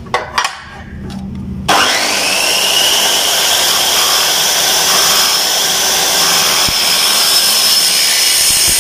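Electric miter saw switched on about two seconds in, its motor spinning up with a brief rising whine, then running steadily at speed while the blade is lowered into an aluminium window-frame T-profile to cut a notch. A few light knocks come first, as the profile is set against the fence.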